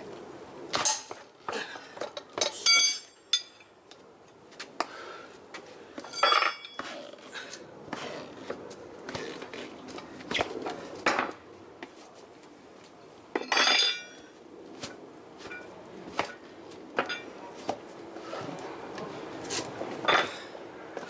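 Metal hand tools clinking and knocking on and off during hand tyre-change work on a motorcycle wheel, with a few louder strikes that ring like struck steel.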